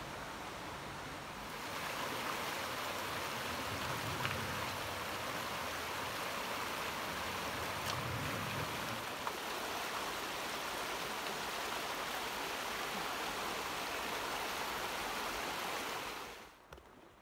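Rushing water of a mountain creek: a steady, even hiss with no rhythm or tone. It gets louder about a second and a half in and cuts off sharply near the end.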